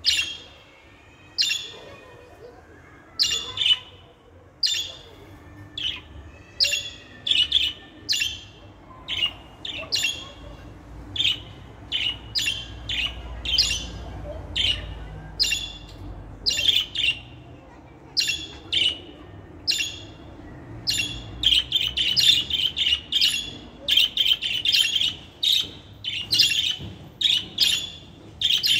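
Budgerigars calling: short, sharp, high chirps about once a second, running into a denser stretch of chattering over the last several seconds.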